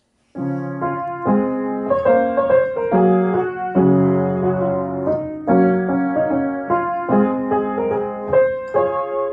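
Outro music: a piano playing a melody over chords, starting about half a second in.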